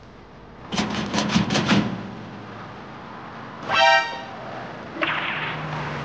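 Cartoon sound effects: a quick run of about five short, bright video-game blips from the laptop, then a single horn-like honk about four seconds in.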